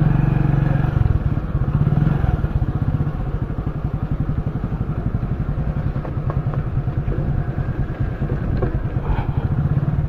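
Small motorcycle engine running as the bike is ridden slowly along a dirt path, a steady rapid beat of exhaust pulses, a little louder in the first couple of seconds.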